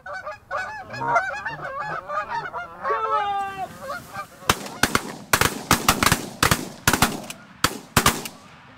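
Canada geese honking and clucking, including a long falling moan, followed about four and a half seconds in by a rapid volley of a dozen or more shotgun shots from several hunters firing at the incoming flock.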